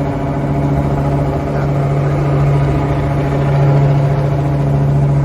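An engine running steadily with a constant low hum, holding the same pitch throughout.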